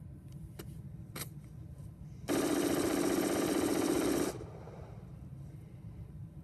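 AR-15 rifle firing one sustained rapid-fire burst of about two seconds that stops abruptly, its barrel run extremely hot in a continuous-fire heat test.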